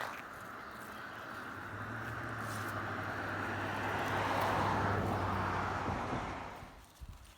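A motor vehicle drives past on a road, its tyre and engine noise swelling to a peak about four to five seconds in, then fading away.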